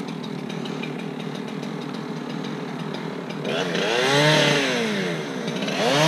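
Chainsaw running at idle, then revved up and back down about three and a half seconds in, and revved up again near the end.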